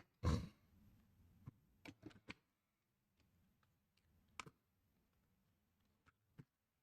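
Scattered light clicks and taps of small tools being handled on a repair bench, with the loudest about a third of a second in and a dozen fainter ones after it.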